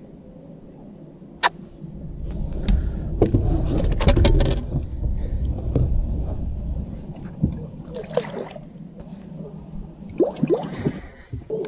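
Knocks and rumbling handling noise as a largemouth bass is lowered over the side of a bass boat, then water sloshing and splashing as the fish is released.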